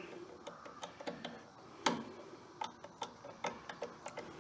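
Light metallic clicks and taps of a hit-and-miss engine's connecting-rod cap and its fasteners being worked by hand, with one sharper click about two seconds in.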